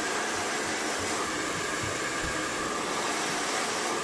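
Hand-held hair dryer with a flat concentrator nozzle blowing steadily: an even rush of air with a faint steady whine. It is heating a vinyl skin so that small wrinkles shrink out.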